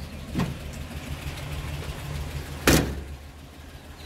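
Six-cylinder engine of a 1979 stepside pickup idling steadily after a fresh tune-up, running a little rich. A single loud knock comes about two-thirds of the way through.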